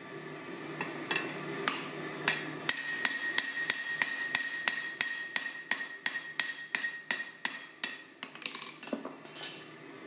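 Hand hammer striking a rivet on the anvil to set it tight on a forged steel wine caddy. A few separate blows, then a fast even run of about four blows a second with a metallic ring over them, ending in a few looser strikes near the end.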